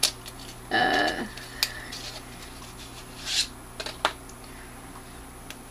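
Handling of a gel eyeliner pencil: scattered small clicks of its cap and barrel, a short pitched sound about a second in, and a brief rub about three seconds in as the tip is drawn across skin.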